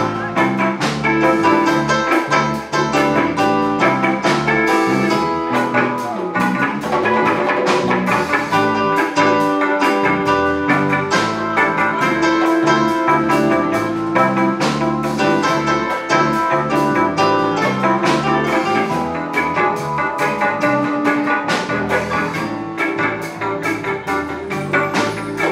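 Live jazz band playing an instrumental number: electric keyboards, drum kit, hand percussion, bass guitar and electric guitar, with a steady beat.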